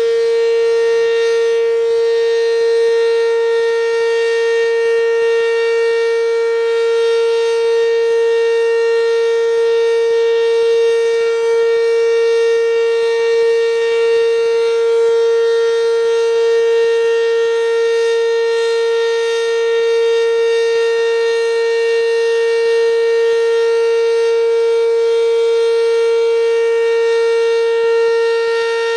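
ACA Banshee outdoor warning siren sounding its weekly test, holding one steady high note at full pitch with a rich stack of overtones and no rise or fall.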